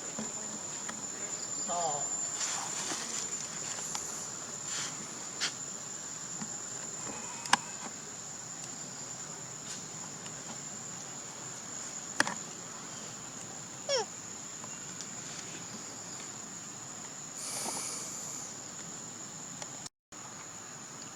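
Steady high-pitched insect drone, a single unbroken tone, with a few sharp clicks and a short falling whistle partway through.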